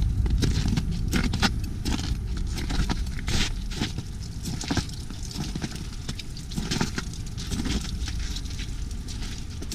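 Footsteps crunching irregularly on an icy, snowy trail strewn with loose rock, over a steady low rumble of wind on the microphone.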